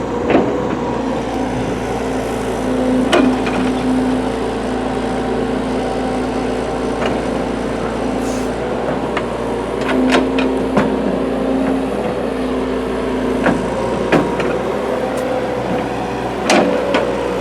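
Excavator's diesel engine running under load, a steady drone with a tone that switches in and out as the hydraulics work. Scattered sharp knocks and clatters as the bucket teeth break through hard lamproite ore.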